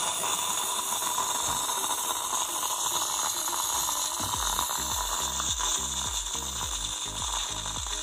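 Bosch Tassimo pod coffee machine's pump running with a mechanical rattle and hiss as it dispenses the milk creamer pod, the last stage of making a latte. About four seconds in it changes to a low, pulsing throb as the cycle nears its end.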